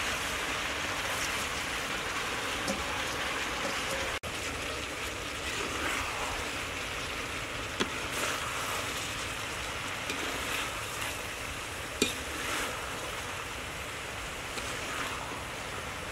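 Green onions and meatballs sizzling in a hot steel wok over a wood fire, with a metal ladle clinking and scraping against the pan a few times.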